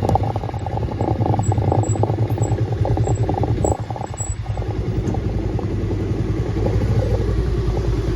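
Motorcycle engine running under way. It eases off briefly a little before halfway through and then picks up again.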